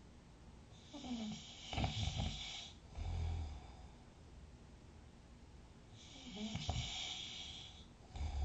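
A sleeping person snoring: two snores about five seconds apart. Each is a hissing breath in that turns into a low, pitched snore, followed by a short low breath out.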